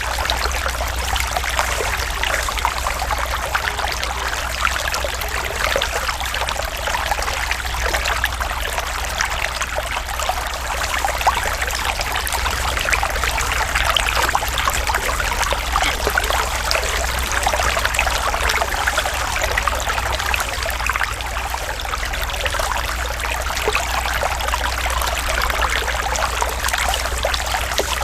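Running water trickling and splashing steadily, like a small stream, over a steady low rumble.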